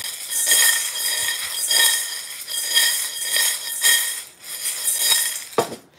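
Small 3D-printed PLA plastic pieces clattering and rattling in a stainless steel saucepan tossed like a wok, the steel ringing. The clatter surges about once a second with each toss.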